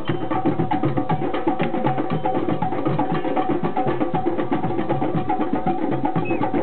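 Group of hand drums playing together in a fast, even rhythm, with a steady held tone underneath.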